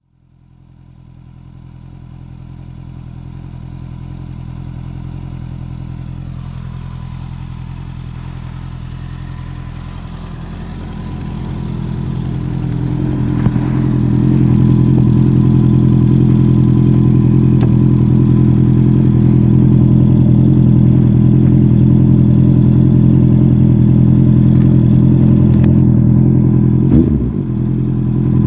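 Honda CB650R inline-four running through a MIVV GP PRO Carbon aftermarket exhaust, a steady engine note. It fades in at the start, grows markedly louder about halfway through, and gives a brief rev change near the end.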